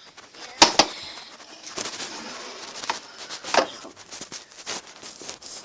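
Handling noises: a few sharp plastic clicks and knocks, two close together about half a second in and another near the middle, with rustling between them as toys are picked up and moved.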